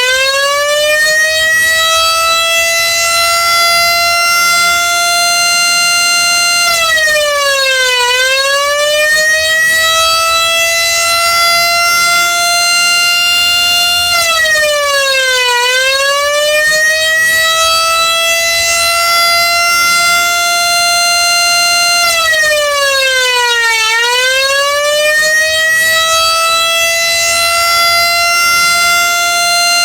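Motor siren climbing to a steady high wail, then dipping briefly in pitch and winding back up three times, about every eight seconds, in a repeating eight-second warning cycle.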